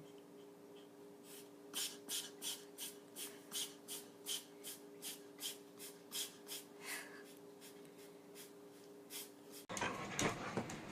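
A pet's quick, rhythmic, noisy breaths, about three a second for several seconds, over a steady electrical hum. Near the end the sound cuts abruptly to something louder and noisier.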